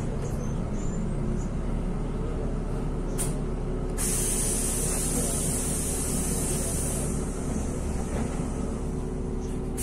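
Inside a NefAZ 5299 city bus under way: steady engine and road noise with a low hum. A short hiss of air sounds about three seconds in, then a louder hiss of compressed air starts abruptly at about four seconds and eases a little after about three seconds, typical of the bus's air brake system.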